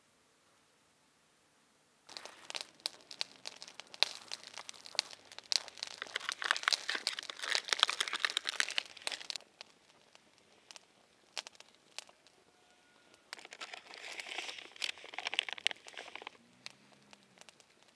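Crinkling and crunching handling noise in two bouts: a long one starting about two seconds in and stopping around nine seconds, then a shorter one a few seconds later.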